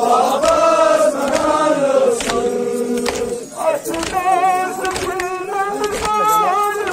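A group of voices singing together, with a held note about halfway through and wavering, ornamented pitch in the second half.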